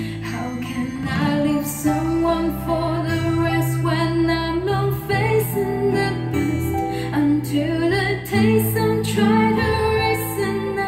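A song with a woman singing over held bass notes and light percussion, played back through a pair of Onkyo D502A two-way bookshelf speakers with 20 cm woofers.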